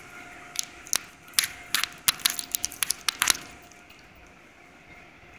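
Irregular sharp clicks and crackles of microphone handling and rubbing noise, bunched in the first three and a half seconds and then dying away, leaving a faint steady hum.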